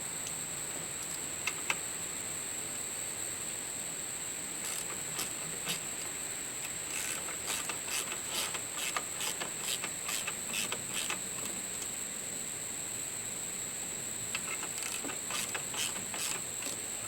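Ratchet wrench with a 12 mm socket clicking in short runs of several clicks a second, tightening the tensioner to put tension on a new alternator and power-steering belt, over a steady high hiss.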